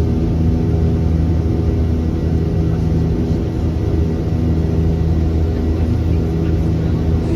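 Steady low drone of a jet airliner's engines, heard inside the passenger cabin.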